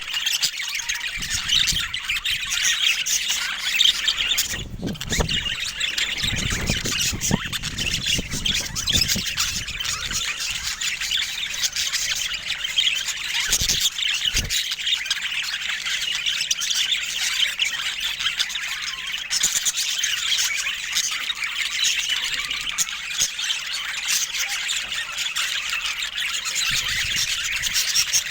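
Budgerigars chattering, chirping and squawking without a break, several calls overlapping. A few low rumbles sound under the chatter in the first half.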